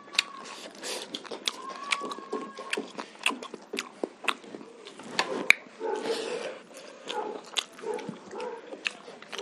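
Close-miked eating sounds of people eating rice and pork curry by hand: wet lip-smacking and chewing, with many short sharp mouth clicks and a louder smack about halfway through.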